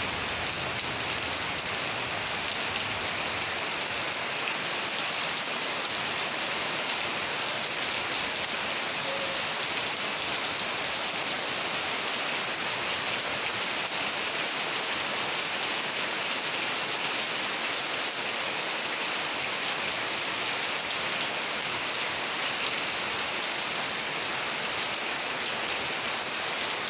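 Steady rain falling: an even, unbroken hiss of heavy rainfall.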